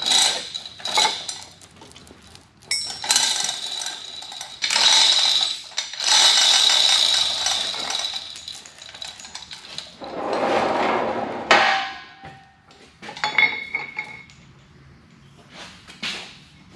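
Chain block and lifting gear being taken off: the chain rattling and clinking in long runs, with sharp metal clanks and a short ringing clink as the rigging and a steel bar are handled.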